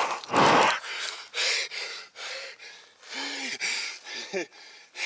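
A man panting hard: a run of loud breaths, the loudest about half a second in, with two short voiced grunts about three and four seconds in.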